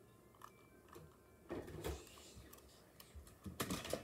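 Plastic Pachycephalosaurus toy figure being handled: faint clicks, a brief rustle about one and a half seconds in, and a louder clatter near the end as it is set down.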